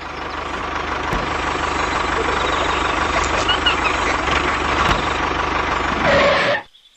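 A machine running steadily, dense and noisy, fading in at the start and cutting off abruptly near the end.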